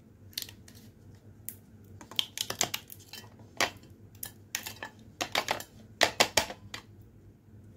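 Ice cubes being pushed out of a plastic ice cube tray and dropped into a stainless-steel tumbler of iced coffee: an irregular run of sharp clicks, cracks and clinks, sparse at first and coming in quick clusters from about two seconds in.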